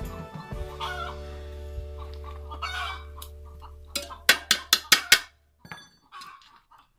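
Chickens clucking over background music that holds a low, steady chord, with a quick run of loud, sharp clucks about four seconds in.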